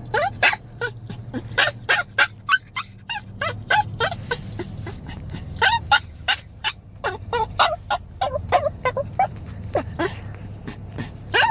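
Chihuahua whining and yipping in a rapid string of short high cries, about three a second: separation distress as it cries for its absent owner.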